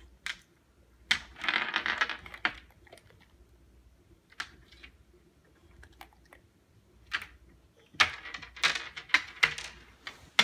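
Small pebbles clicking and rattling against a coffee table as a boxer dog drops them and scoops them back up with his mouth. Two bursts of clattering come about a second in and again near the end, with single clicks between.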